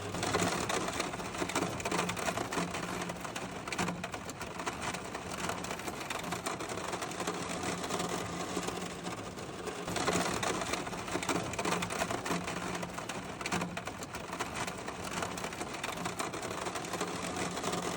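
Steady rain pattering on a camper van's roof: a dense crackle of drops with a faint low hum underneath.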